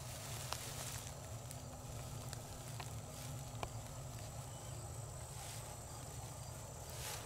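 Quiet outdoor ambience: a steady low hum and a thin high tone, with a few faint scattered ticks.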